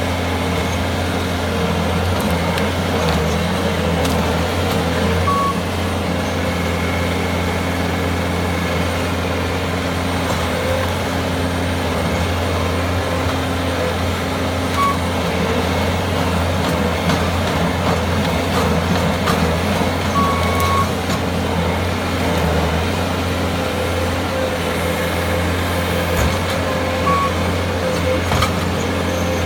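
Bobcat S510 skid steer's diesel engine running steadily under load while the machine works at pulling out a large tree stump. A few short high beeps sound over the engine, spaced several seconds apart.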